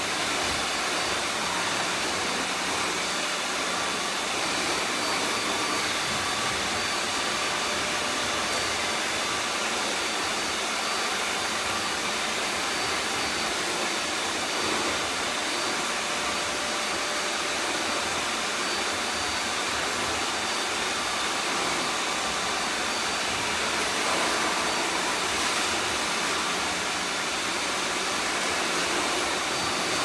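Many robot vacuum cleaners running at once, a steady whirring of motors and suction with a few faint whines mixed in.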